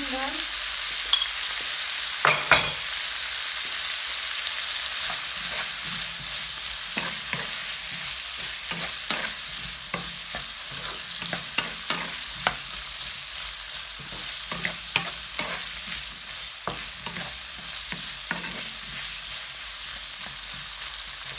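Diced vegetables, pineapple and chicken sizzling steadily in a non-stick frying pan while being stir-fried with a wooden spatula, which scrapes and knocks against the pan again and again. A few of the knocks, in the first three seconds, are louder than the rest.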